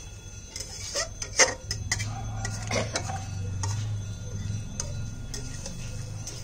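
Metal utensil clicking and tapping against a cooking pan, with a sharp clink about a second and a half in, over a steady low hum.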